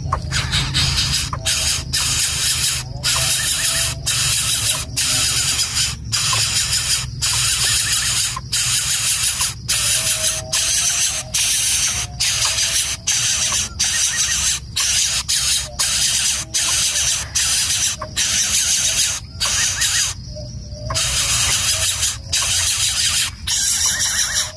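Greater coucal nestling giving harsh, hissing begging calls, repeated in quick runs with short breaks between them.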